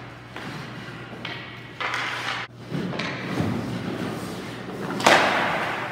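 Ice hockey warm-up sounds: pucks and skates on the ice making a run of thuds and scraping noises, the loudest a sharp hit about five seconds in.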